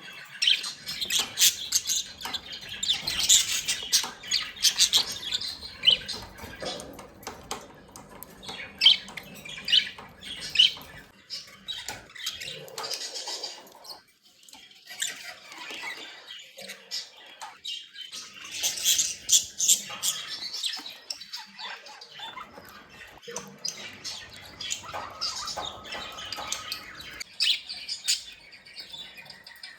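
Budgerigars chirping and chattering in quick, dense bursts of short high calls, with a brief lull about halfway through.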